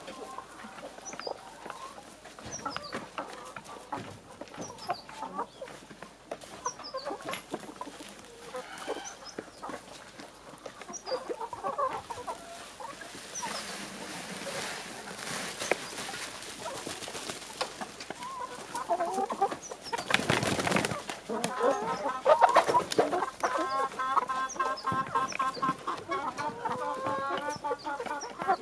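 Kuroiler chickens clucking as they feed, with scattered light pecking taps. About two-thirds in, a short rush of noise comes, and then several hens cluck louder and more steadily.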